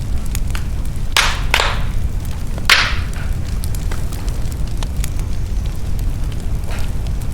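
Wood fire crackling in a fireplace: a steady low rumble under many small clicks, with a few louder hissing pops, about a second in, half a second later, and the loudest near three seconds.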